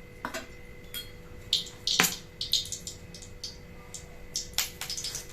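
Scattered clicks and clinks of a cooking pan and utensils on the stove, with one sharper knock about two seconds in.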